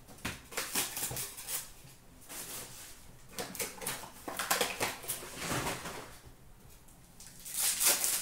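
Trading card pack wrappers crinkling and rustling as hands handle and open hockey card packs, in irregular bursts, the loudest one near the end.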